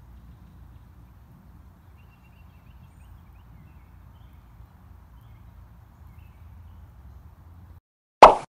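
Faint outdoor background hum with a few faint high chirps, then a brief gap and a short, loud logo sound effect near the end, cutting off within a fraction of a second.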